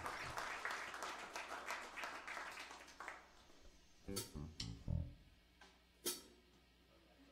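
Scattered applause tailing off over the first few seconds, then a few separate notes picked on an electric guitar and a sharp click about six seconds in.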